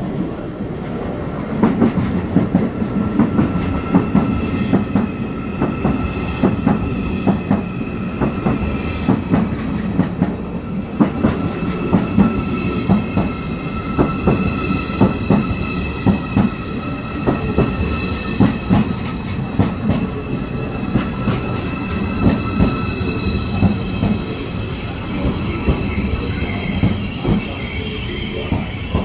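ICE high-speed electric train rolling slowly into a station and braking, with a low rumble and an irregular clatter of wheels over rail joints and points. A steady high-pitched squeal sounds through most of it.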